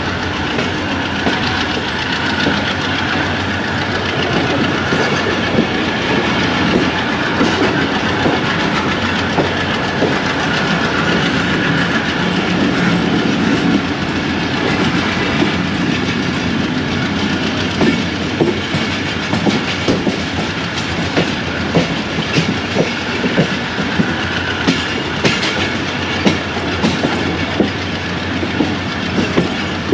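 Passenger train running on the line, a steady rumble with wheels clacking over rail joints; the clacks come more often and more regularly in the second half.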